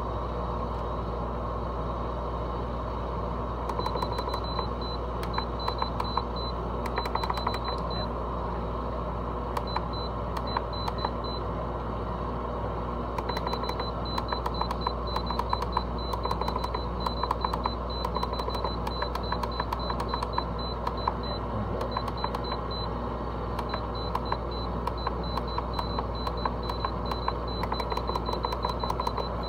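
LG window air conditioner running with a steady low hum from the compressor and fan. From about four seconds in, rapid irregular ticking with short high chirps comes and goes over the hum.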